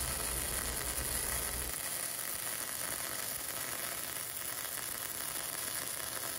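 Arc welding on aluminum sheet: a steady sizzling hiss from the welding arc as a fender panel is tacked in place.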